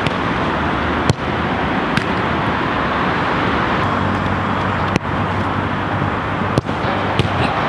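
Steady outdoor urban background noise like distant road traffic, with a few short, sharp knocks scattered through it.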